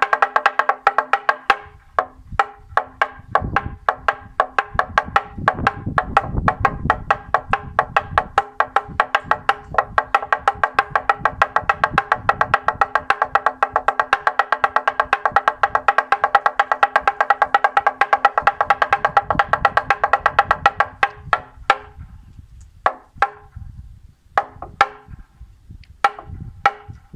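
Toaca (wooden semantron), a long hanging wooden board, beaten with a wooden mallet in a fast, rhythmic run of ringing knocks: the Romanian Orthodox call to prayer. About three quarters of the way through, the rapid beating gives way to a few spaced single strikes.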